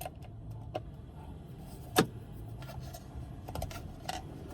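Small metal and plastic clicks and taps of a small screwdriver tool working a screw out of car dash trim, with one sharp click about two seconds in and a few more light clicks near the end.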